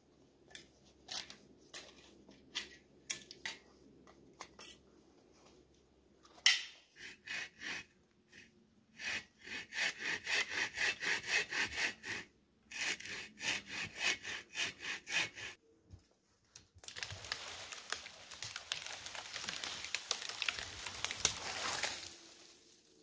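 Hand saw cutting dead wood for firewood: scattered light clicks and one sharp crack about six seconds in, then runs of saw strokes about four a second, broken by short pauses, and a denser, steadier stretch of sawing near the end.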